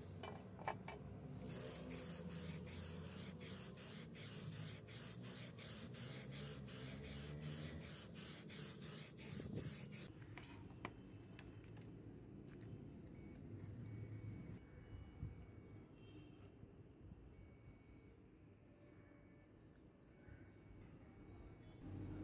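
Digital multimeter's continuity buzzer giving repeated short high beeps, starting and stopping irregularly through the second half, as the test probes touch points on a circuit board.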